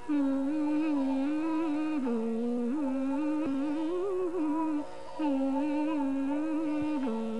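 South Asian classical-style film music: a single slow melody line, without words, gliding and wavering between notes over a steady drone. It breaks off briefly a little past halfway and steps down to a lower note near the end.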